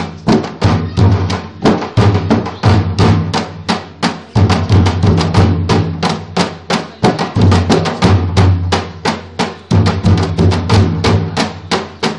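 Three dhime, Newar double-headed barrel drums, played together in a fast, driving rhythm: rapid sharp strokes over a deep, sustained low drum tone.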